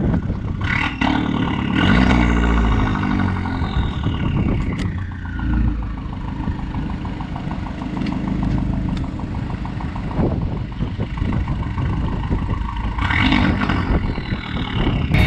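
Dodge Dart rally car's engine being driven hard, its revs rising and falling with gear changes. There is a long falling sweep about two seconds in and another climb near the end.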